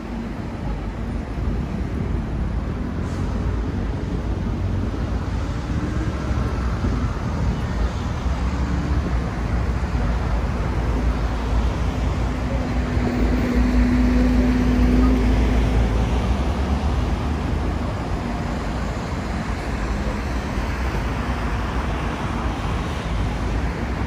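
Road traffic on a city street: a steady hum of passing vehicles, with one vehicle passing louder around the middle, its low engine note swelling and then fading.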